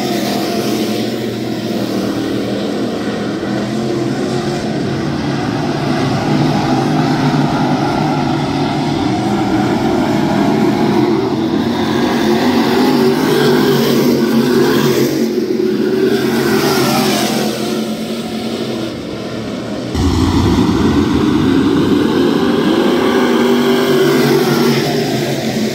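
Several dirt late model race cars running laps, their V8 engines rising and falling in pitch as they pass, lift and get back on the throttle. About twenty seconds in the sound jumps suddenly louder and fuller as a car comes by close.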